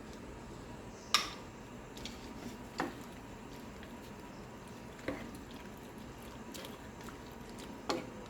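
Chicken-broth sauce with shrimp and vegetables simmering in a pan: a steady low bubbling hiss with four separate sharp pops or drips, the loudest about a second in.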